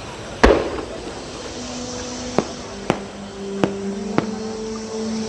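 Aerial fireworks shells bursting: one loud boom about half a second in, then four sharper bangs. Under them, show music with long held notes begins about a second and a half in.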